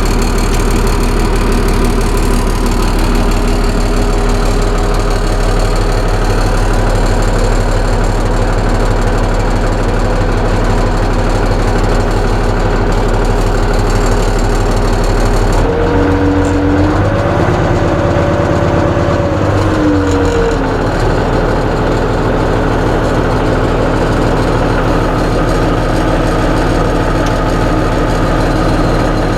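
Case International 956XL tractor's diesel engine running steadily, its pitch rising for a few seconds about halfway through and then dropping back. It runs without the model's usual exhaust whistle because of a crack in the exhaust manifold.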